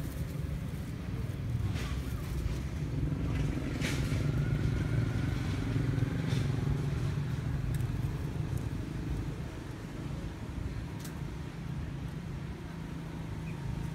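Motor vehicle engine running, a low rumble that swells around the middle and eases off again as it passes, with a faint rising whine. A few light ticks are heard over it.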